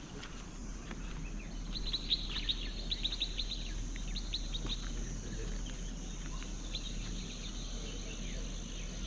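Birds calling in quick runs of short, falling chirps, thickest in the first half and sparser after, over a steady high insect drone.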